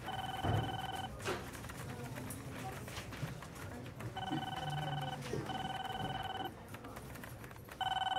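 Electronic telephone ringer trilling in short bursts about a second long: one at the start, two close together in the middle, and another near the end, over quiet room ambience with a few faint knocks.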